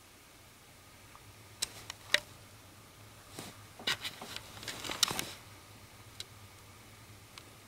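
Quiet room tone broken by a scatter of soft clicks and rustling, a few sharp ticks about one and a half to two seconds in and a denser cluster around four to five seconds in, with two lone clicks near the end.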